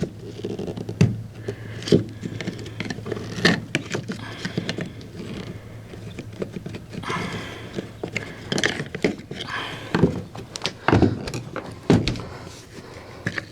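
Irregular clicks, taps and knocks of hands working on a car window regulator, handling its cables and plastic cable drum, with a few brief rustles.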